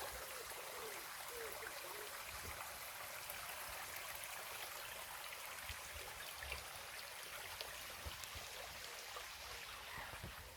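River water running steadily, an even rushing noise. A faint wavering tone sounds in the first two seconds.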